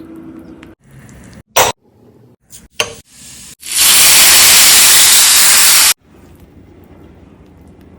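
Two sharp knocks, then a loud sizzling hiss lasting about two seconds that cuts off suddenly: hot oil sizzling in a pan while cooking kadhi pakora.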